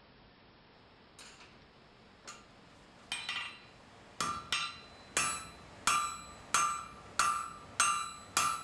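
Hammer blows ringing on a red-hot nail held in a nail header on the anvil, forming the nail's head. A couple of faint taps and a quick flurry come first, then steady ringing strikes about one and a half a second, growing louder.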